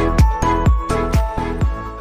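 Background music with a steady kick-drum beat, about two beats a second, under bright pitched notes, slowly getting quieter as the track fades out.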